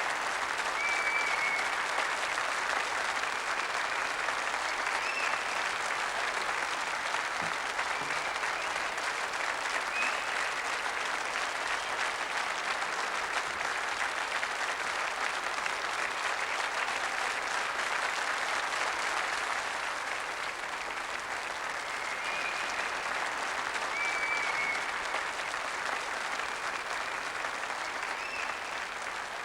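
Audience applauding steadily, with a few short high whistle-like tones over it.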